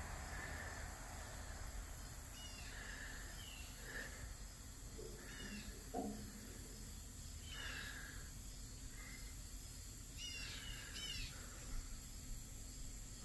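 Birds chirping: short downward-sliding chirps that come in small groups every couple of seconds, over a steady low background hum, with a faint knock about six seconds in.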